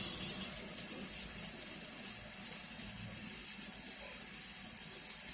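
Chopped vegetables and green peas sizzling in the hot onion-tomato masala in a pressure cooker: a steady, even hiss that stops near the end.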